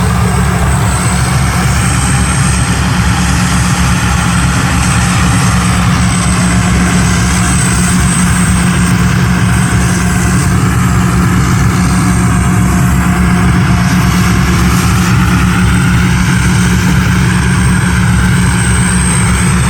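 Combine harvester's diesel engine running loud and steady, with a faint high-pitched whine held throughout.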